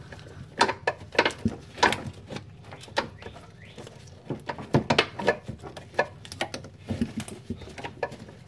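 Irregular clicks and knocks of hand tools and gloved hands working at a car battery terminal up inside a wheel well, several a second in uneven clusters.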